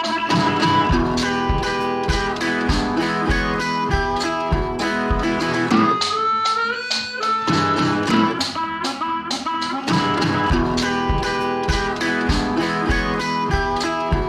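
Background music: a blues-style band with guitar over a steady beat.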